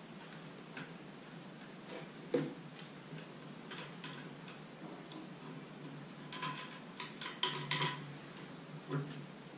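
Small metallic clicks and taps of an Allen key and bolts being worked into the aluminium extrusion frame of a 3D printer, scattered through, with a quick run of several clicks about six seconds in.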